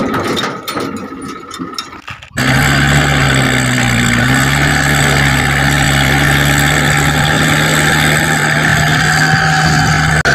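Stones and brick pieces clatter as they are dropped by hand into a toy dump truck's plastic bed. About two seconds in, a loud, steady truck-engine idling sound cuts in abruptly and runs on evenly; it is a sound effect laid over the hand-pushed toy truck.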